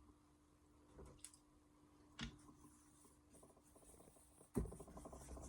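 Near silence with a faint steady hum, broken by a few small clicks and one louder knock about four and a half seconds in, followed by a faint fine scratching.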